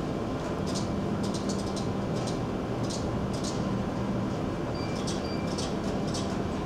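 Steady low hum of a container ship's engine and machinery, heard inside the wheelhouse, with irregular faint light ticks over it.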